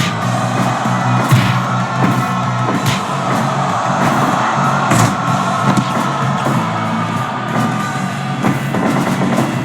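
Rock music with drums, playing continuously with a few sharp hits.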